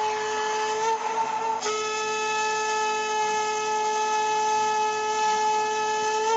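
Conch shell (shankha) blown in one long, steady, horn-like note, with a short break and fresh blast about a second and a half in.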